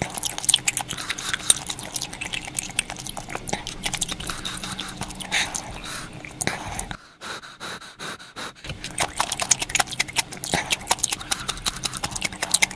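Close-miked eating sounds of mala tang: chewing and wet mouth noises with many small clicks. The sound drops away briefly about seven seconds in, then resumes.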